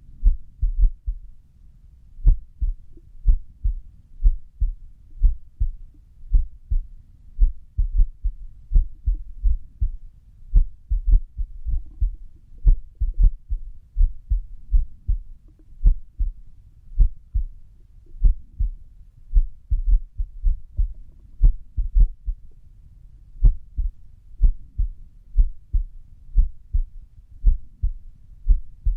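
Human heart sounds recorded at rest: low lub-dub thumps in pairs, beating at an uneven rhythm with a few longer pauses between beats, the sign of an arrhythmia (irregular heartbeat).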